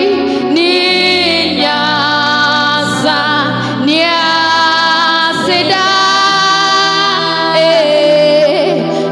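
Two women singing a gospel worship song live into microphones, with long held notes that bend in pitch.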